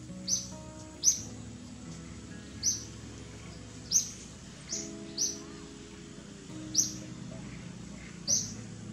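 A bird repeating one short, high chirp about once a second, over soft background music of sustained notes.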